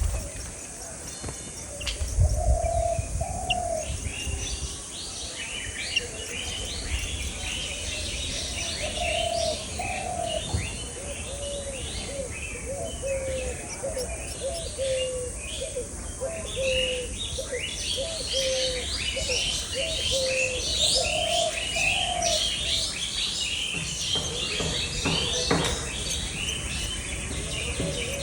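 A chorus of birds, with many small birds chirping busily and a lower call repeated in short series of notes through the middle.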